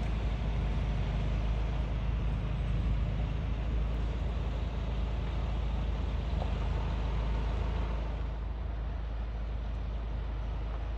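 Road vehicle running, a steady engine and tyre rumble, with the higher hiss easing off about eight seconds in.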